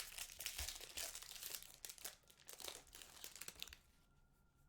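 Trading-card pack wrapper crinkling and tearing as it is handled and ripped open, a dense run of crackles that stops a little before the end.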